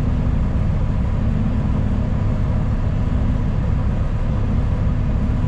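Steady low rumble of a city transit bus's engine and road noise, heard from inside the passenger cabin.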